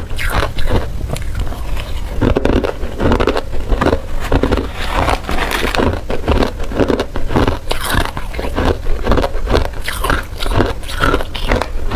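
Hard ice being chewed and crunched, a rapid run of cracking and crackling bites several times a second, with a metal spoon scraping among ice chunks in a plastic tub.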